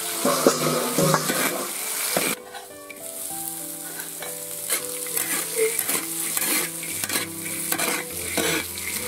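Peanuts frying in oil in a large iron wok, with a metal spatula scraping and turning them over and over. The sizzle is loud at first and drops noticeably about two seconds in, while the scraping strokes carry on.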